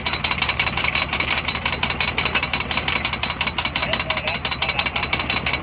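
Engine of a drilling rig running steadily, with a rapid, even knocking beat.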